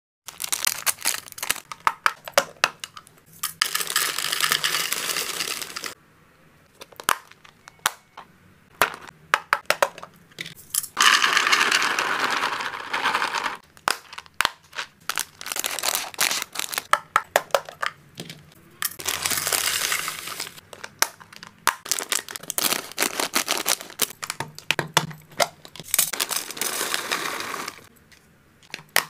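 Hamster treats being unpacked into plastic storage boxes: plastic snack packets crinkling, dry pieces pouring and rattling into the boxes, and sharp clicks of hard plastic. The pouring and crinkling come in several stretches of a few seconds each, with many single clicks between them.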